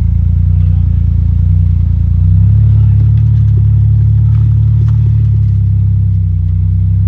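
Vehicle engine running loudly and steadily, a low rumbling note that rises a little in level about two seconds in and then holds.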